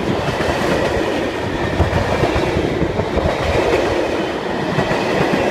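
Freight train of loaded timber wagons rolling past, a steady loud rumble of steel wheels on rail.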